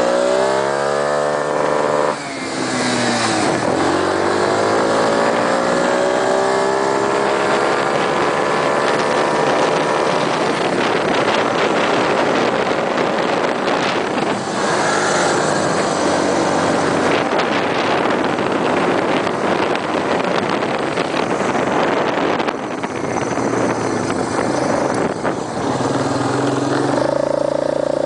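Small off-road buggy's engine running hard under way: the revs climb, dip sharply about two seconds in, climb again, then hold high under a steady rushing noise.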